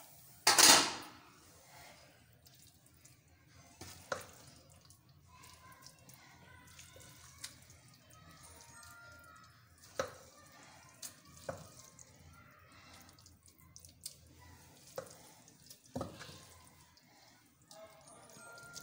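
Serving spoon clinking and scraping against an aluminium cooking pot and a ceramic plate while a wet cabbage curry is dished out: a loud scrape about half a second in, then single knocks every few seconds.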